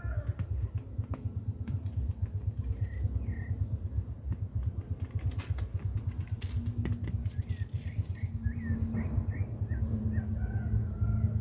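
Outdoor farm ambience: a low, uneven rumble throughout, with birds chirping briefly about three seconds in and then in a quick run of chirps near the end, over a faint pulsing insect.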